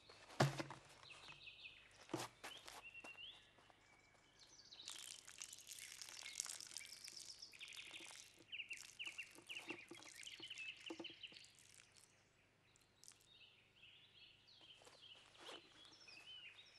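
Small birds chirping and trilling, with a dense run of song in the middle. Two sharp knocks come in the first couple of seconds, the first the loudest sound.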